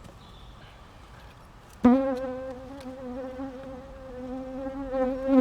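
A flying insect buzzing close to the microphone: the buzz starts suddenly a little under two seconds in and holds a steady hum that swells louder near the end.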